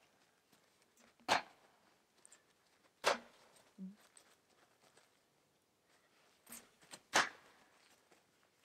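A long wooden staff being swung hard in separate strokes: four short, sharp sounds one to two seconds apart, the third fainter than the rest.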